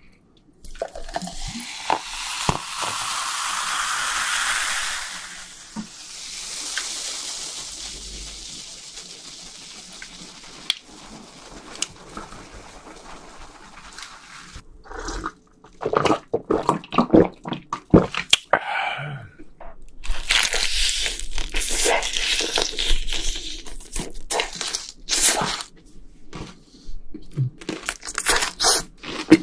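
Coca-Cola poured from a plastic bottle into a glass, the pouring note rising as the glass fills, then a fainter fizzing hiss as the soda foams. About halfway through, this gives way to close-up crunching and chewing of fried food.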